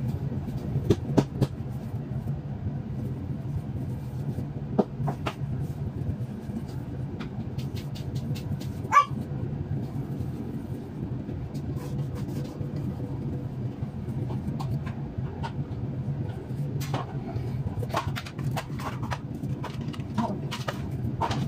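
Gloved hands shaping mashed potato and setting it into a baking dish: scattered soft taps and clicks over a steady low hum, with one brief squeak about nine seconds in.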